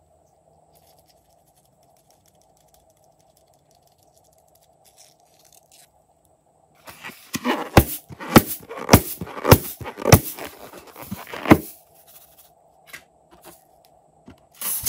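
A filled rubber balloon squeezed and worked in the hands, making about eight loud sharp squeezes in quick succession over some four seconds. Right at the end a pair of scissors snips into the balloon. Before the squeezing there is only faint ticking of glitter being sprinkled.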